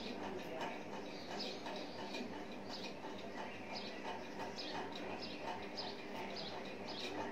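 Fine-tip marker squeaking and scratching on paper in short, quiet strokes, about two a second, as small triangles are drawn.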